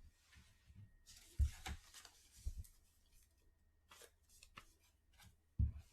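Faint rustling with a few soft taps and clicks scattered through, from handling trading cards and small desk items.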